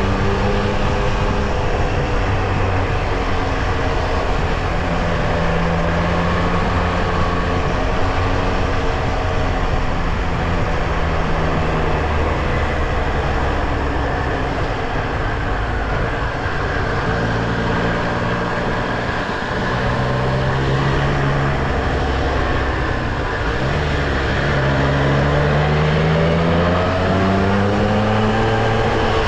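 Triumph Street Triple R's three-cylinder engine running under way. Its pitch holds steady for stretches, falls and rises several times with the throttle, and climbs steeply near the end as the bike accelerates.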